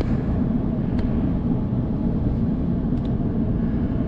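Steady low rumbling noise, with two faint ticks about a second and three seconds in.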